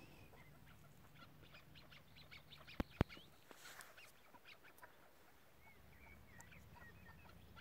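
Chukar partridge calling faintly in a run of quick, clipped clucking notes, with two sharp clicks close together about three seconds in.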